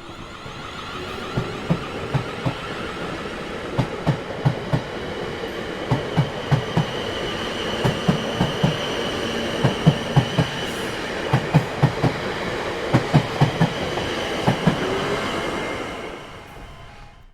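A train rolling past, its wheels clacking over rail joints in quick clusters of clicks over a steady rumble. The sound builds over the first few seconds and fades away near the end.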